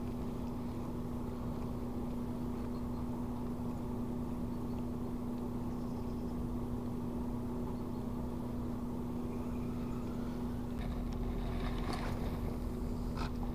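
A steady motor hum holding one even pitch, with a low rumble beneath it; a few short clicks come near the end.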